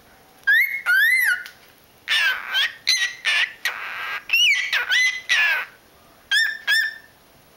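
Pet cockatiels chirping and whistling: a run of short calls that swoop up and down in pitch, in several quick groups with brief pauses between them.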